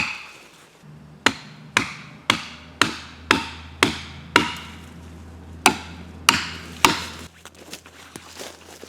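Felling wedges being driven into a tree's plunge cut with sharp hammer blows, about two a second, each with a short ring, with a pause in the middle and three more strikes after it. The wedges are spring-loading the trunk toward its planned direction of fall.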